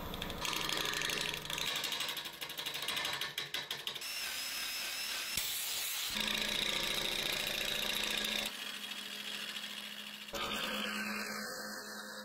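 Wood lathe running while a turning gouge cuts a spinning burl blank, a steady machine hum with the scraping noise of the cut. The sound changes abruptly several times as short clips are cut together.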